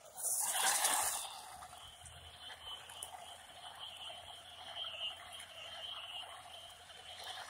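Electric RC truck taking off hard on gritty blacktop: a loud rush of tyre and motor noise lasting about a second, then the truck running on more quietly with a steady high hum that rises and falls.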